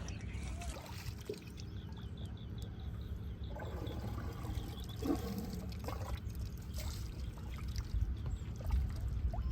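Water pouring and trickling steadily.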